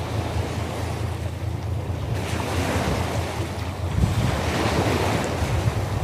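Sea surf. A wave breaks about two seconds in and its hiss swells as it washes up the shore, over a steady low rumble of wind on the microphone.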